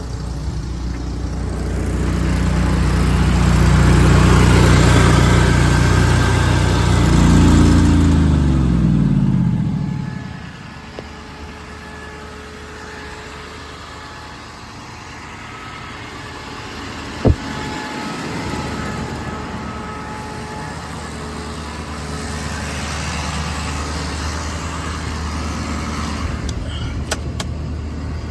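An engine on the service truck runs loud and steady, then winds down with falling pitch and stops about ten seconds in. A quieter steady engine hum carries on after it. A single sharp click comes about halfway through, and a few more clicks near the end.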